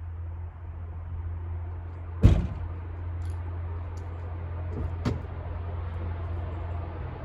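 A sharp knock about two seconds in, then a few lighter clicks and a second knock near five seconds, over a steady low hum.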